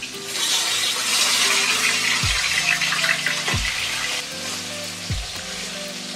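Rohu fish steaks sizzling in hot mustard oil in an iron kadai, the sizzle loudest for the first few seconds as the pieces are turned with a steel spatula, then easing to a steadier fry. Soft background music with a low beat runs underneath.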